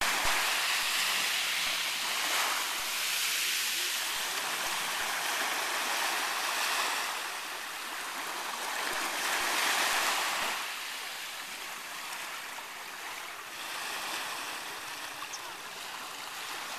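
Small sea waves washing up onto a sandy beach and swirling around a boulder at the water's edge: a steady hiss of surf that swells and eases with each wave, loudest near the start and around ten seconds in, then softer.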